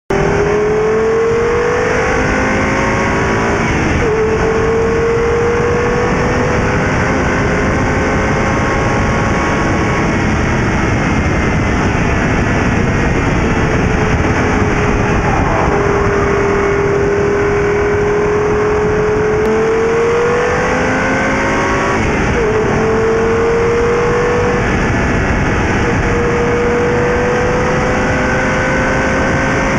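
Audi TT RS Plus's turbocharged five-cylinder engine running hard at speed, its note climbing slowly and dropping sharply at gear changes about 4 and 22 seconds in. Heavy wind and road noise from the low exterior-mounted camera sits under the engine throughout.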